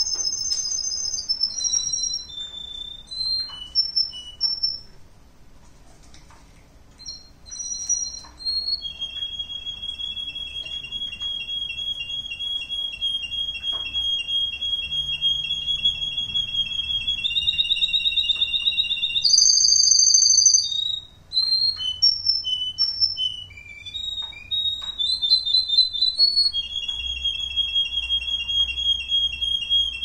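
Russian canary singing a long song of rapid trills, each held on one pitch and then switching to another. A long steady mid-pitched trill runs through the middle, a loud high trill follows, and the song ends on another long trill. There is a brief lull early on.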